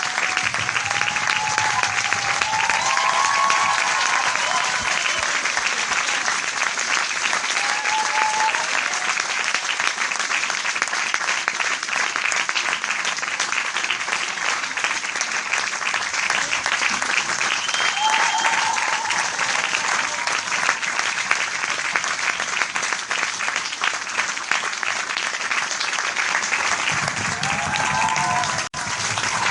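Large crowd applauding steadily, a dense continuous clapping with a few voices calling out above it now and then. The sound cuts out for an instant near the end.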